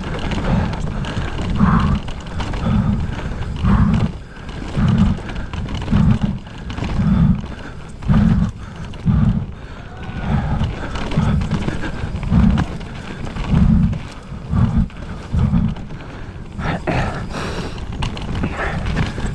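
Mountain bike ridden at race speed down a rough downhill trail: the bike and tyres rattle and knock over the dirt, under low rumbling gusts that come and go about once a second.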